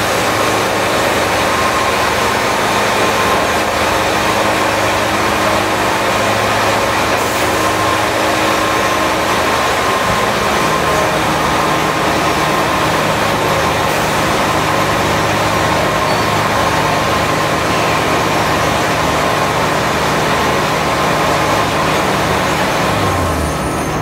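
Wood-Mizer band sawmill running: loud, steady machine noise with a hum whose low tones shift in pitch about ten seconds in.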